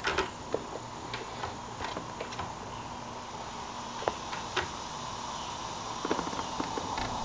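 Steady low hum of background room tone, with a few light ticks and taps from a boot shifting on a motorcycle's rubber-topped foot pegs.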